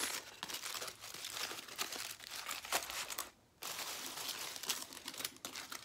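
Aluminium foil and a thin plastic bag crinkling and rustling as foil-wrapped corn tortillas are handled and unwrapped: a dense run of crackles with a short break about three and a half seconds in.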